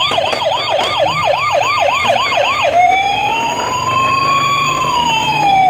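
Electronic siren of a toy fire truck. It yelps quickly, about four rising and falling sweeps a second, then switches to one slow wail that rises and falls.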